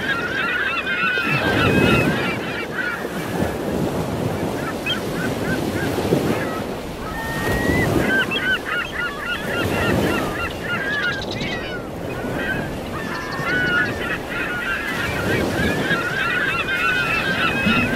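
A flock of birds calling and squawking over ocean surf, with waves washing in again and again underneath.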